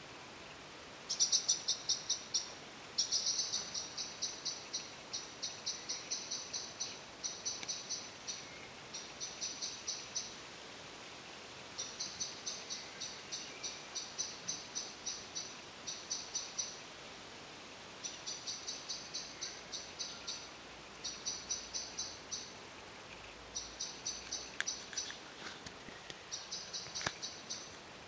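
High chirping in rapid trains of about six chirps a second, each train lasting one to two seconds, repeated with short pauses.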